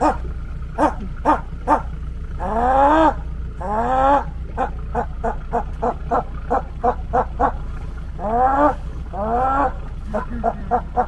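A man imitating howler monkey calls: a string of short, rhythmic grunts, about two a second, broken by four longer roars that rise in pitch, in two pairs.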